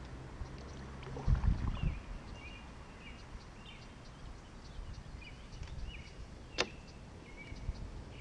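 Paddle knocked down onto a plastic sit-on-top kayak, a short cluster of loud knocks about a second in. A bird calls with short repeated chirps throughout, and there is one sharp click near the end.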